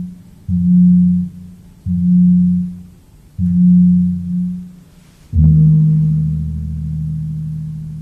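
Javanese kempul (medium hanging bronze gongs) struck on the boss with a padded mallet: three deep pitched strokes, each cut short within a second by a hand pressed on the boss to damp it, then a fourth stroke about five seconds in left to ring on and fade slowly.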